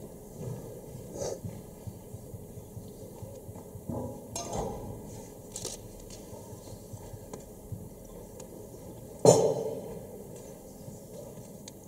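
Footsteps on a stage floor and small clinks of a glass carafe and wine glass while wine is poured, with one louder knock about nine seconds in.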